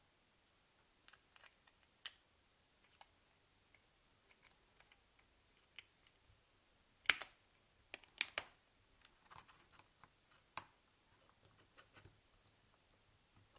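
Light, irregular plastic clicks and taps from handling a small mobile phone and its parts, with a few sharper clicks past the middle.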